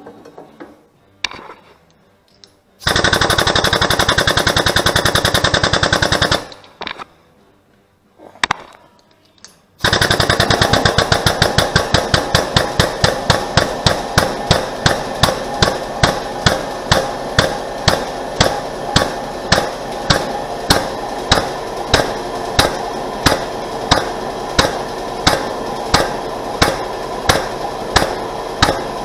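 The shop press's jack pumping under load as the press brake bends steel plate, with an even, rapid clatter of strokes. After a few knocks there is a run of about four seconds, then from about ten seconds in a long run whose strokes slow steadily, from very fast to about one and a half a second.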